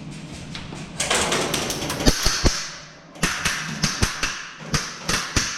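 Airsoft guns firing in two rapid, uneven volleys of sharp cracks, the first about a second in and the second just after the three-second mark.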